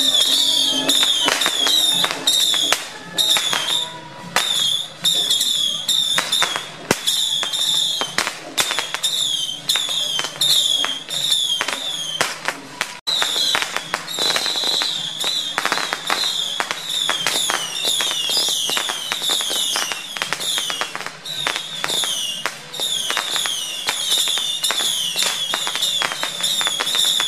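Firecrackers going off in long rapid crackling strings, with many short falling whistles sounding over them one after another.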